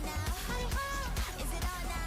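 Background music with a steady beat and a held melody line, likely a pop track with vocals.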